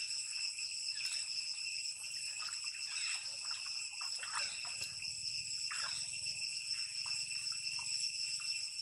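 Steady, high-pitched insect drone, a chorus of cicadas, running without a break. Under it is faint, irregular splashing of water from a young macaque swimming.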